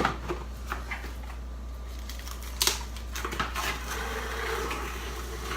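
Plastic cling wrap being pulled off its roll and handled: crinkling and rustling with scattered light clicks and taps.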